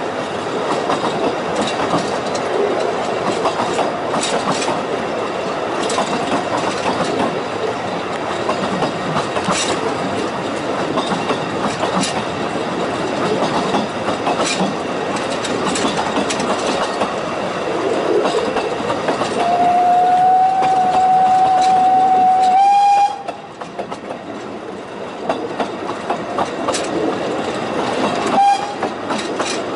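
Talyllyn Railway narrow-gauge train running, its wheels clicking over rail joints over a steady rumble. About two-thirds of the way through, the locomotive's steam whistle sounds one steady note for about three seconds and cuts off sharply, and a short whistle blip follows near the end.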